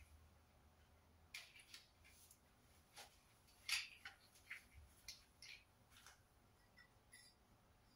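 Faint, scattered clicks and taps of plastic clothes-rack parts being picked up, knocked together and set down, a handful of separate short sounds.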